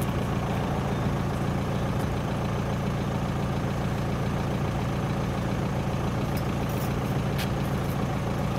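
A heavy engine running steadily, its sound concentrated low, fading away about a second after this stretch ends.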